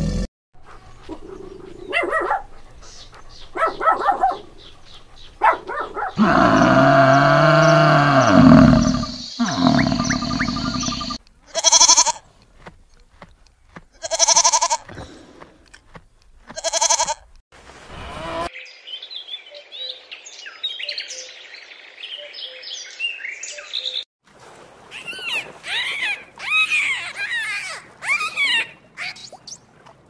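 A run of animal sounds: a loud drawn-out call near the start, then a goat bleating three times a couple of seconds apart, then many quick high-pitched calls near the end.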